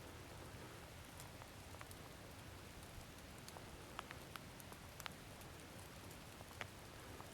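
Near silence: faint outdoor background hiss with scattered light ticks and patters.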